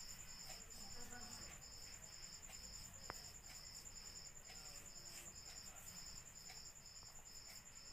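Insects chirping faintly: an even, pulsed high chirp about two or three times a second over a steady, higher continuous trill.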